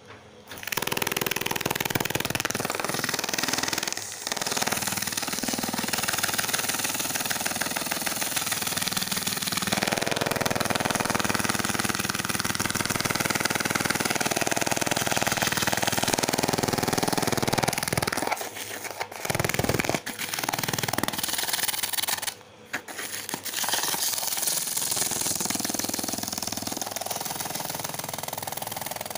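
Helicopter sound effect: a steady rotor chop with engine noise, briefly dropping out a few times.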